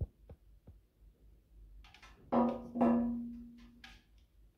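Handling of a plastic bedside lamp on a glass tabletop: a sharp knock with two light taps, then two loud knocks about half a second apart, the glass ringing on in a steady tone that fades over about a second and a half.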